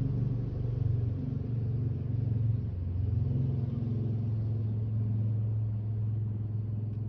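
A steady low mechanical rumble, like a motor running, holding at an even level.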